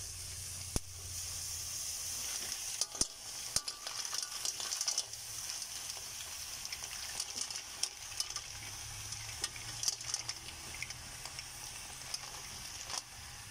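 Fresh green mussels tipped into a hot wok of sautéed vegetables: a steady sizzle, with the shells clattering against each other and the wok in bursts of sharp clicks as they pour in.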